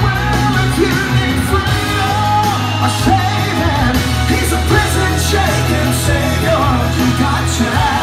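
A man singing loudly into a handheld microphone over a recorded backing track with a steady bass line, his voice pushed to near-shouts in places.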